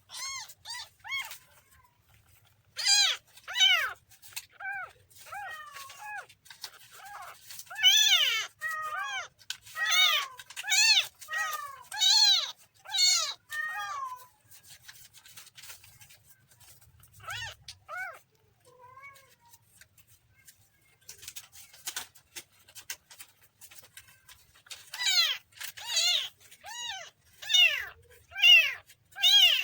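Kitten mewing over and over in short, high, arching calls, several a second in runs, with a quieter stretch of only a few calls in the middle.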